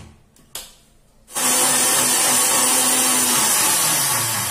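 Sujata mixer grinder grinding leftover cooked rice with water into a batter: the motor starts abruptly a little over a second in and runs loud and steady. A brief knock comes just before it starts.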